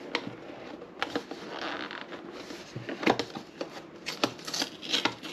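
A small packaging box being handled and pried open by hand: scattered clicks and taps of the box and its lid, with a short stretch of rustling a second or two in.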